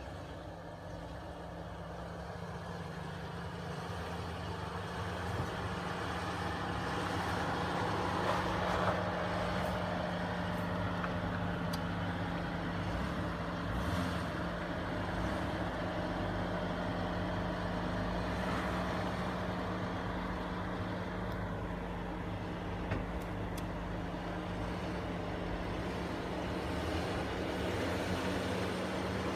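5.7-litre Hemi V8 of a 2015 Jeep Grand Cherokee running at low revs as the vehicle crawls slowly through deep dirt ruts, a steady low engine note that grows louder over the first several seconds as it approaches. A few brief knocks sound from the vehicle along the way.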